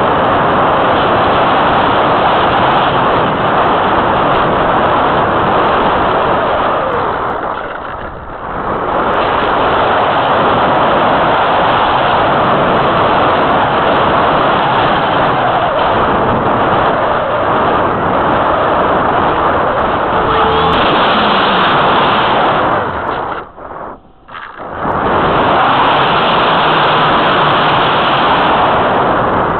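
Wind rushing over the microphone of a keychain camera mounted on the wing of an Easy Glider Pro model glider in flight: a loud, steady noise that drops away briefly about eight seconds in and again for a second or two near the end.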